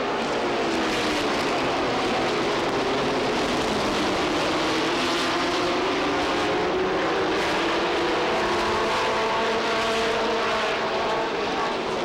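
A pack of short-track stock cars racing past at speed: several engines overlap, their notes sliding down and rising again as the cars go by.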